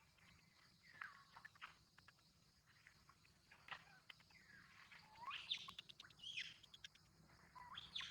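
Faint, high-pitched squealing cries from long-tailed macaques: several short calls that each sweep sharply upward, loudest about five to six and a half seconds in, with scattered light clicks around them.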